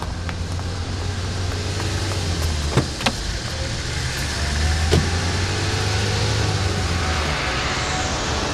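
A police car's engine running, with sharp knocks about three seconds in and again about five seconds in as car doors are shut.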